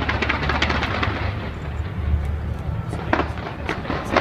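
A fireworks display going off: a steady low rumble full of rapid crackling and banging, with two louder bangs about three seconds in and near the end.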